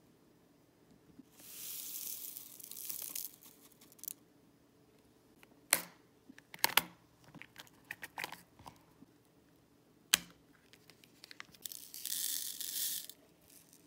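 Tiny plastic diamond-painting drills sliding off a plastic tray into small storage containers, a rushing hiss heard twice, once early and once near the end. In between, a few sharp clicks of the containers' plastic snap lids.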